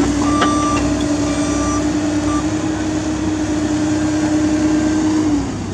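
Komatsu and CAT mini excavators working, their diesel engines running with a steady hydraulic whine under digging load. A few short high squeaks come in the first couple of seconds, and the whine drops away just before the end.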